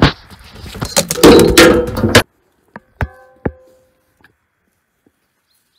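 Loud rustling, clattering knocks for about two seconds that cut off abruptly, then two sharp knocks about half a second apart, the first followed by a brief ringing tone.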